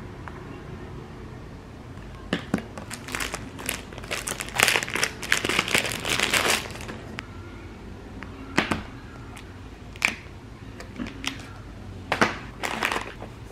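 Crinkling and rustling of plastic and paper packaging being handled and unfolded, densest from about four to six and a half seconds in. After that come a few separate sharp clicks and taps as small plastic items are handled on the table.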